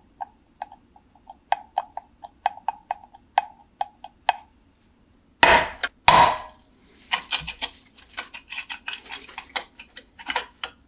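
A run of sharp metallic clicks, about three a second, each with a short ping, from the spring-loaded bulb contact prong of an old steel railroad lantern being pressed and let snap back. About five and a half seconds in come two loud rasping scrapes, then a busy stretch of metal scraping and clinking as a tool works inside the rusty lantern body.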